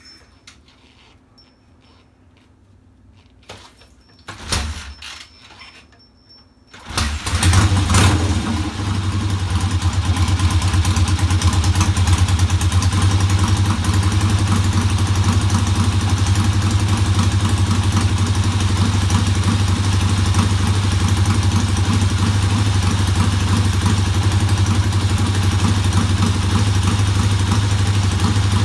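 1967 Triumph motorcycle engine being kick-started: a few clunks from the kick-start, then the engine catches about seven seconds in and runs steadily.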